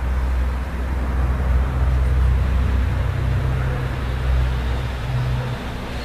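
Road traffic: a low, steady rumble of a motor vehicle's engine close by, over general road noise, swelling and easing a little.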